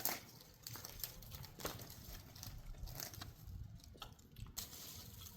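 Faint, scattered rustling with light irregular clicks and snaps. No chainsaw is running.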